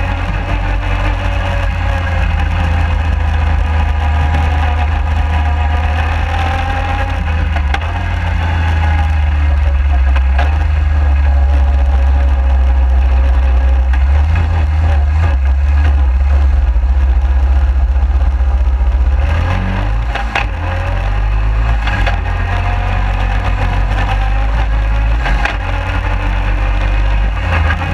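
Suzuki QuadSport 250 ATV being ridden across bumpy grass, heard from a camera under the front bumper: heavy wind rumble on the microphone over the engine, whose pitch drifts up and down with the throttle. Sharp knocks from the front end come through now and then, a cluster of them about two-thirds of the way in, where the sound briefly eases.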